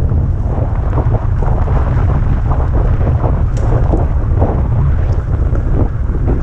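Wind buffeting the microphone of an electric moped riding along a gravel byway, a heavy steady rumble, with frequent short crunches and knocks from the tyres and frame over the bumpy gravel.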